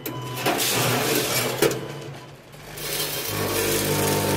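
Vibratory feeder pans of a two-head weigher buzzing, with namkeen snack mix rattling and sliding along the stainless-steel trays. The buzz swells and fades twice, with a sharp click in the middle.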